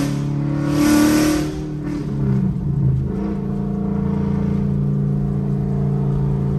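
2014 Mustang GT's 5.0 V8 running through catless long-tube headers and an off-road X-pipe while driving, heard from inside the cabin. The exhaust is loud and swells in the first couple of seconds, its pitch shifting as the revs change, then settles into a steady note while cruising.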